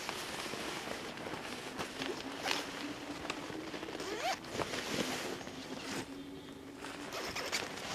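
Nylon hammock fabric and mosquito netting rustling and swishing in short bursts as a man climbs out of the hanging hammock. A faint steady hum lies underneath from about two seconds in until near the end.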